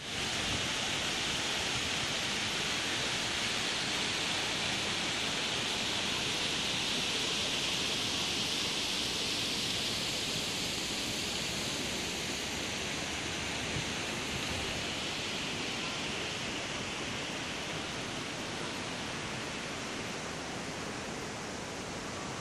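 Fountain jets splashing into a pool: a steady hiss of falling water that eases a little in the second half.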